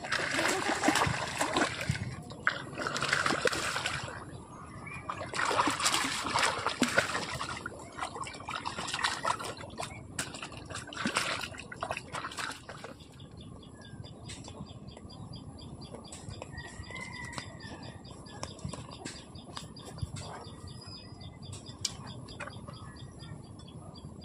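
Water splashing and sloshing in irregular loud surges for about the first half. After that it quietens to a steady outdoor background of insects chirping, with a short bird call.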